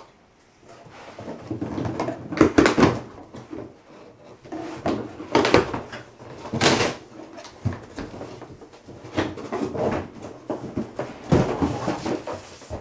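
Large cardboard bicycle shipping box being opened: a knife slitting the cardboard and the flaps being pulled back, in irregular bursts of scraping and rustling with a few knocks.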